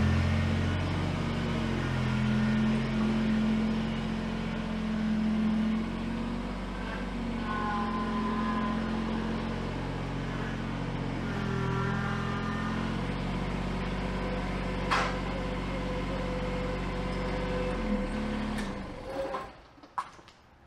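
Kubota BX23s tractor's three-cylinder diesel engine running as the tractor reverses, its backhoe left lowered instead of raised for travel, so the bucket scrapes across the asphalt pavement. The engine shuts off near the end.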